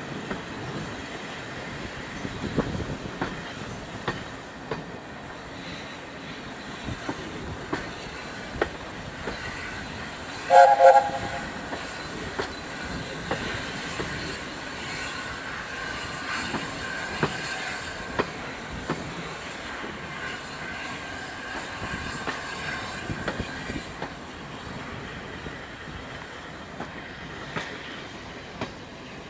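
Passenger coach rolling behind LNER A4 steam locomotive 60009: steady running noise with sharp clicks of the wheels over rail joints. About ten seconds in, the locomotive's chime whistle gives one short, loud blast of several notes sounding together.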